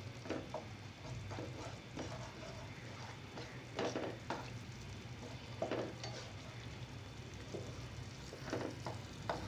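Black spatula scraping and stirring a mustard-and-spice paste sizzling in oil in a nonstick frying pan, with irregular scraping strokes. This is the bhuna stage, where the masala is fried until its raw smell goes and the oil separates. A steady low hum runs underneath.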